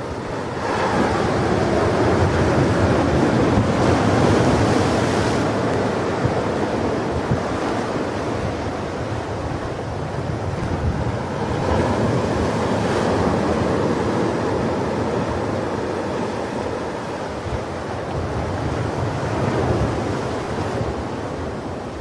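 Sea surf: waves breaking and washing up the shore in three surges, each swelling and easing away before the next.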